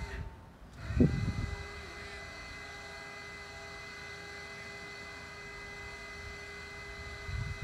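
Boom lift's hydraulic drive running with a steady, even whine as the bucket is raised, after a short low rumble about a second in.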